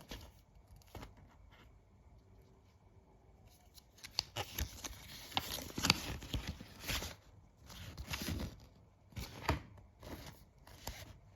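Packaging being handled and torn open, with irregular rustling and tearing and sharp clicks, starting about four seconds in.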